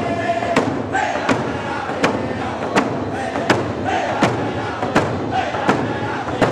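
Many hand frame drums struck together in a steady beat of about three strokes every two seconds, under a group of voices singing a Native American round dance song.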